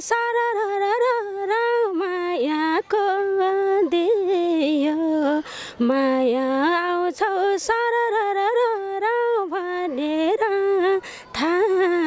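A woman singing a Nepali folk song with no instruments, in long held notes with a wavering vibrato and quick ornamented turns, pausing briefly between phrases.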